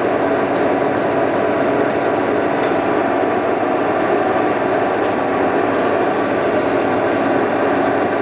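Defum KNA 110/135 vertical turret lathe running under power, its drive and feed gearing giving a steady hum made of many fixed tones, with the turret head feeding up in the Z-axis.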